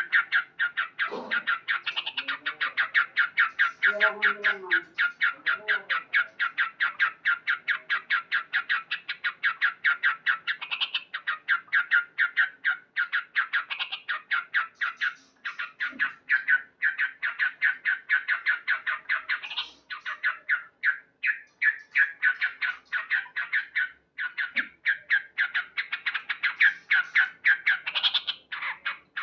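Male yellow-vented bulbul (trucukan) calling without pause: a fast run of short, sharp chattering notes, several a second, loud and steady, the call of a male in breeding condition.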